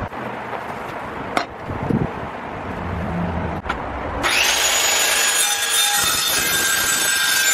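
Ryobi corded circular saw starting about four seconds in and running steadily as it cuts across a wood slat. Before it comes on there are a few light knocks.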